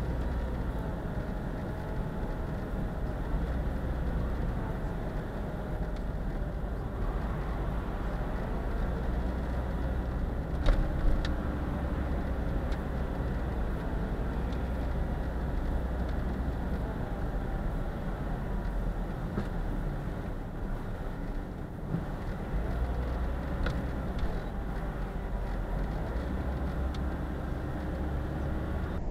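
Steady road and engine noise inside a car cruising at highway speed, a low rumble throughout, with a brief knock about eleven seconds in.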